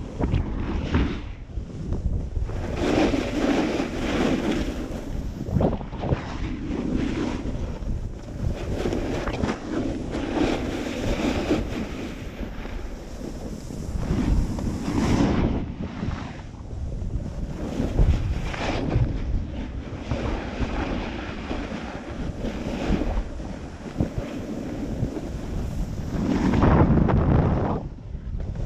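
Wind buffeting the microphone as a snowboard slides down a groomed slope, its edges scraping over the snow and swelling louder with each turn.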